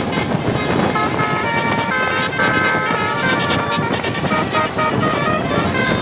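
Tour bus's Basuri telolet horn, a multi-tone air horn, playing a tune of quick stepped notes from about a second in, over loud steady background noise.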